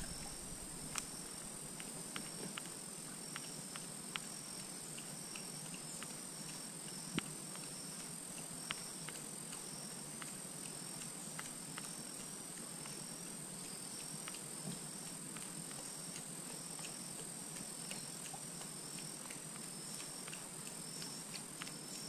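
Faint forest-shore ambience: a steady high insect drone with a softer chirp that keeps repeating, and scattered light clicks and taps.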